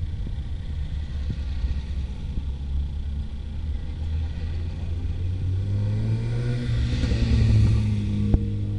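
Classic cars driving past one after another, with a steady low rumble of engines and road noise. About six seconds in, one car's engine note rises and grows louder as it approaches, then a single sharp click near the end.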